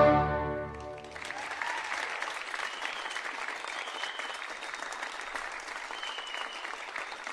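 A held orchestral chord ends about a second in, then the audience applauds steadily.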